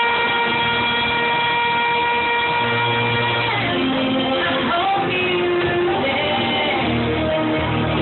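A woman singing live into a microphone over amplified backing music, holding one long high note for about three and a half seconds before moving into shorter phrases over a bass line.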